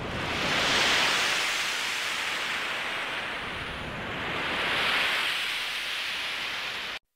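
Ocean surf ambience: a steady rushing hiss that swells twice, like waves washing in, and cuts off abruptly just before the end.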